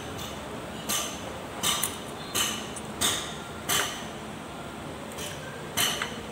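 Metal clicks and clinks from a box wrench, screwdriver and rocker arms as the valve tappet clearance is set on a two-cylinder diesel engine's cylinder head. Short sharp ticks come every half second to a second, with a pause of about two seconds past the middle and two close together near the end.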